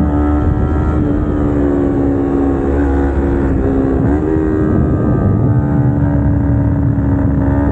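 Kawasaki Ninja 250R's parallel-twin engine, fitted with aftermarket headers and exhaust, running at fairly steady revs under way, with a brief rise in revs about four seconds in.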